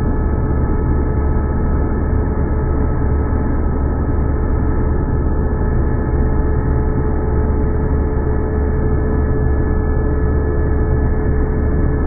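Vacuum cleaner running steadily: a constant low drone with a steady whine over it, unchanging throughout.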